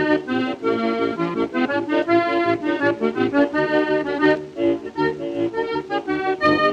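Background music: a lively accordion tune playing quick, bouncy notes.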